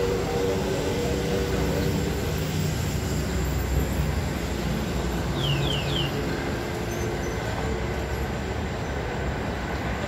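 Heavy diesel construction machinery running: a steady low rumble with engine hum, and three quick high squeaks about five and a half seconds in.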